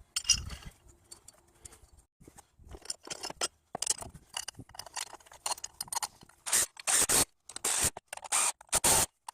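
Scraping of hand work in an engine bay, then a regular series of short rasping strokes, about two a second, from about six and a half seconds in.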